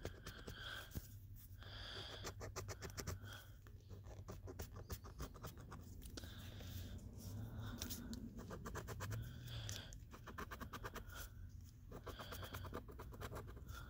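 A coin scraping the coating off a lottery scratch ticket, in quick runs of rapid strokes with short pauses between.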